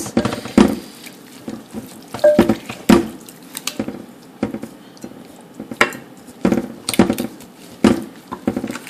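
Gloved hands rubbing seasoning and marinade into a raw bone-in pork picnic roast: irregular wet squishes and slaps of meat being worked.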